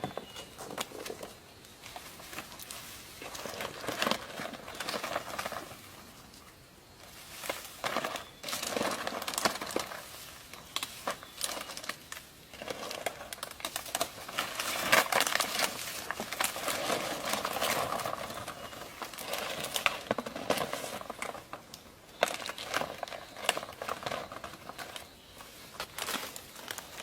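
Irregular rustling and crackling with many sharp little clicks, coming and going in bursts, as material is handled.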